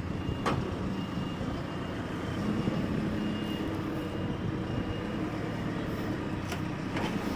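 Heavy diesel truck engine running steadily under load during the lift, with faint short high beeps now and then.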